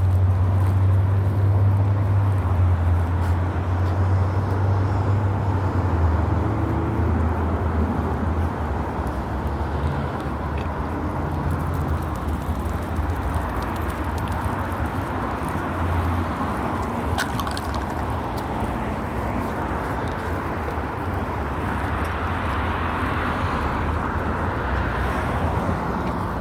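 Steady low rumble of a vehicle running, with a strong low hum that weakens about six seconds in.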